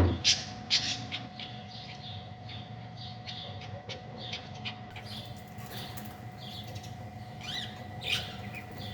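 Birds chirping in many short, repeated calls, over a faint steady tone.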